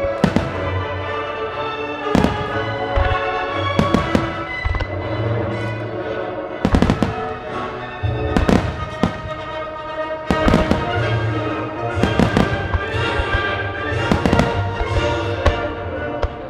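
Fireworks from a music starmine show: shells bursting every second or two over music played to accompany the display.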